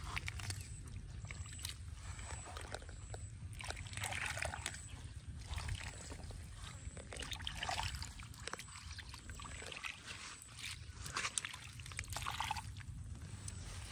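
Hands sloshing and squelching through a shallow muddy puddle, scooping water and mud in irregular bursts.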